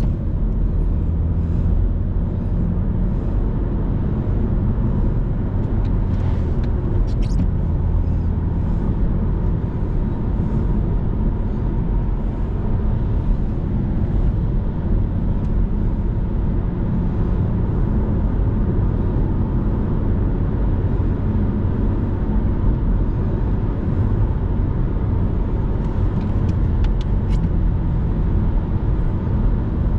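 Cabin sound of a 2007 Audi A3 Sportback 1.6 FSI on the move: the four-cylinder petrol engine running steadily under way, with a constant drone of tyre and road noise.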